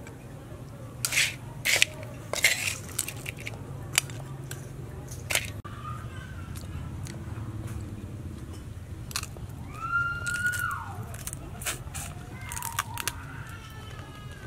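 Cooked whole crabs being bitten and chewed, their shells cracking and crunching in a series of sharp snaps that come thickest in the first few seconds.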